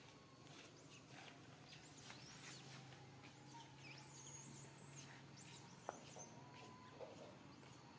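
Faint outdoor ambience: scattered thin, high chirps over a steady low hum, with a single sharp click about six seconds in.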